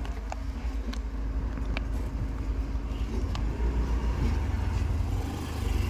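Car on the move, heard from inside the cabin: a steady low engine and road rumble, with a few sharp clicks scattered through it.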